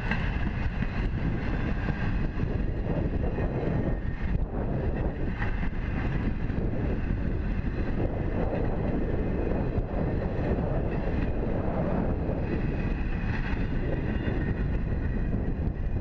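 Railroad flatcars of a freight train rolling past on the track: a steady rumble and rattle of steel wheels on rail, with wind buffeting the microphone.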